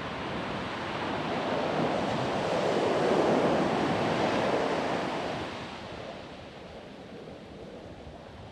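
Ocean surf on a sandy beach: a wave's wash swells to its loudest about three seconds in, then falls back to a softer rush by about six seconds.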